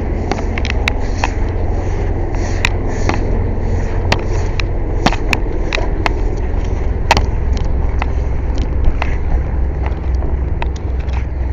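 Steady low drone of a running air compressor, with irregular sharp metallic clicks and knocks from hand tools worked on the tire.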